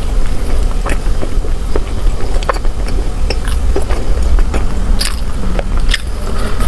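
Close-miked eating: a person chewing and biting soft food, with many small wet mouth clicks and crackles at irregular times, over a steady low rumble.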